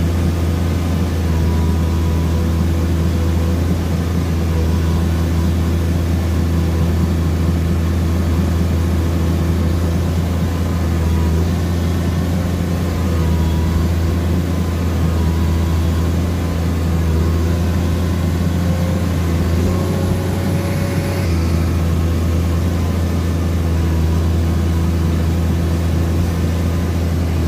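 Komatsu PC210 excavator's diesel engine running steadily under load while the machine travels through a flooded mud track, heard from the cab, a deep, even hum with a brief change in its note about twenty seconds in.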